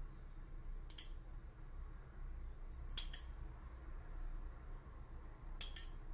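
Spoon clinking against dishes while chocolate sauce is spooned onto a cake: a single clink about a second in, then two quick clinks around three seconds, and two more near the end.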